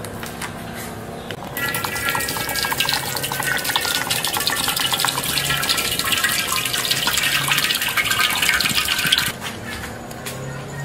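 A stream of liquid pouring into a steel wok and splashing on the metal, starting about a second and a half in and stopping near the end.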